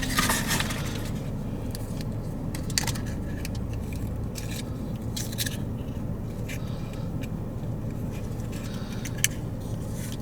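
Small blind-box package being handled and opened: scattered crinkles, clicks and scrapes of cardboard and wrapper, over a steady low hum.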